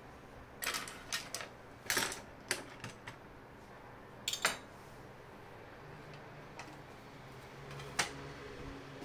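Paintbrushes, a metal palette knife and a clear plastic palette being set down on a tabletop: a series of short clacks and taps, the loudest about two and four and a half seconds in, and a last one near the end.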